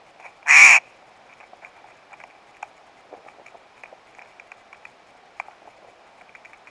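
A Steller's jay gives one loud, harsh call about half a second in. Faint scattered clicks and taps follow, the jay's bill working at the peanuts.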